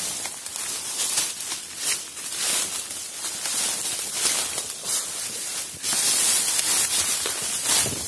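Footsteps crunching through dry bamboo leaf litter, with irregular rustling and crackling as leaves and stems are brushed aside, louder about six seconds in.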